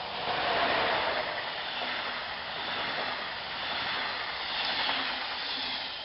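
Passenger train passing close by at speed: a DB class 111 electric locomotive hauling double-deck coaches. The steady rush of wheels on rail is loudest as the locomotive passes about a second in, continues while the coaches go by, and fades near the end.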